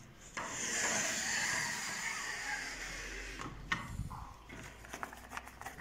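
Pleated fabric blind being slid along its guide cords by hand: a soft rustling swish lasting a couple of seconds, followed by a few light clicks and taps.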